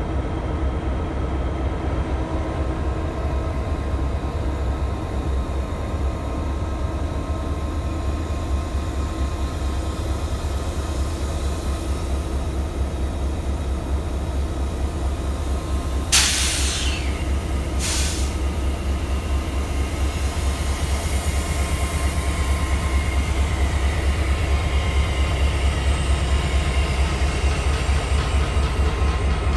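Idling diesel-electric freight locomotives, a GP38-2 among them: a steady low engine rumble with a faint hum, growing a little louder near the end. A little past halfway come two short, sharp hisses about two seconds apart.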